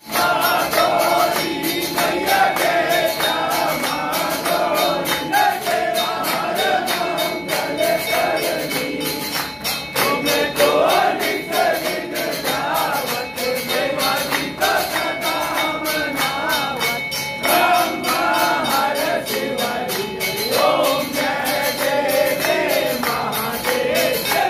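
A devotional aarti hymn sung live, with voices singing over a fast, steady rhythm of jingling metal percussion.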